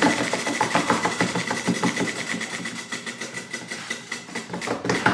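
Spinning prize wheel's pegs clicking in rapid succession, the ticks slowing steadily as the wheel loses speed.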